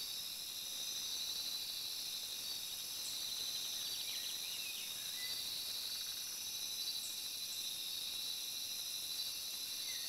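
Outdoor ambience of insects droning in steady high tones, with a few brief chirps about halfway through.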